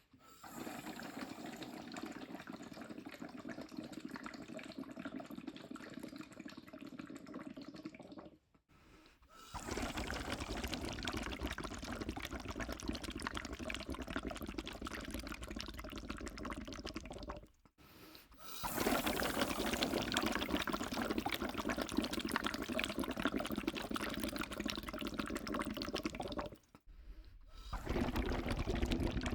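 Steady pouring, splashing noise of liquid, in four stretches of about eight seconds each, broken by short silent gaps.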